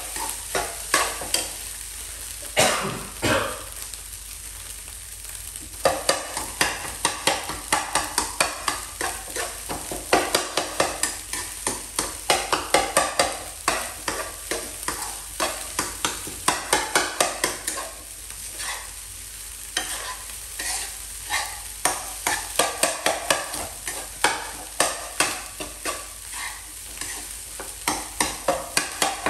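Fried rice being stirred in a nonstick frying pan: a spatula scrapes and taps against the pan in quick strokes, several a second, over a steady sizzle, with a few short pauses in the stirring.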